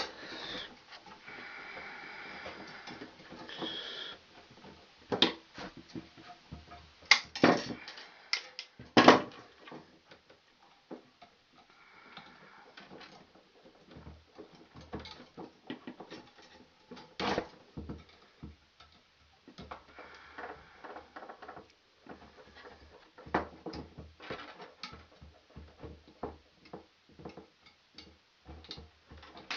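Irregular clicks, taps and light knocks with brief rustling, from hands working stiff copper building wire and tools in a metal two-gang switch box.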